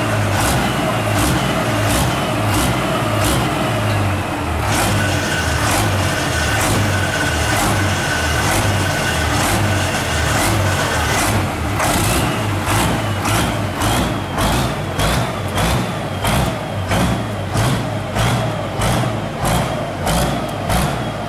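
Pulling tractor's engine running loudly; from about halfway through it is revved in quick repeated blips, a little under two a second.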